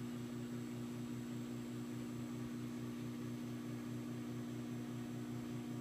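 Microwave oven running while it heats a slice of pizza: a steady electrical hum with a faint, even pulsing underneath.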